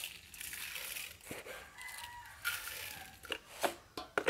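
A rooster crowing once, faintly, about two seconds in. Around it, a plastic bag crinkles as sugar is shaken from it onto pumpkin pieces in a steel basin.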